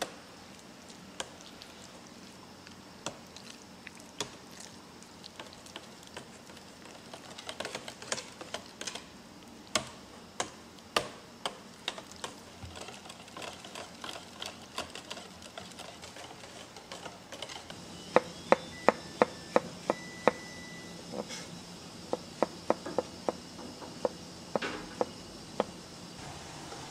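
Wire whisk stirring a thick sauce in a bowl, with scattered clinks of the whisk against the bowl. About two-thirds of the way in, a knife chops button mushrooms on a cutting board in a quick, even run of sharp knocks, several a second, followed by shorter clusters of knocks.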